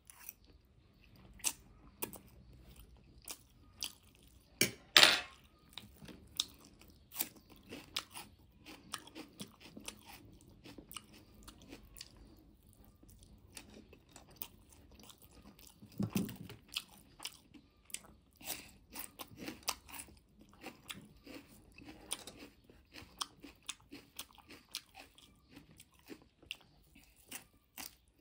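Close-up eating sounds: a mouth chewing and slurping spicy instant noodles, with many short, wet mouth clicks. There is a louder burst about five seconds in and a deeper, heavier one about sixteen seconds in.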